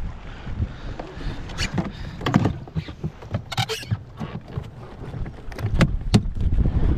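Kayak paddling: irregular paddle splashes and knocks from a Tucktec folding kayak being paddled, over a low rumble.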